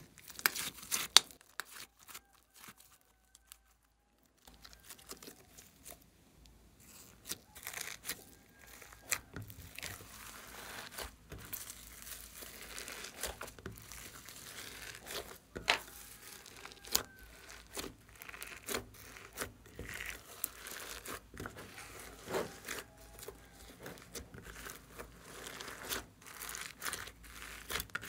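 Slime being squeezed and mixed by hand with foam beads and glitter in a glass dish: irregular sticky crackling and clicking. It drops to near silence for a couple of seconds a few seconds in.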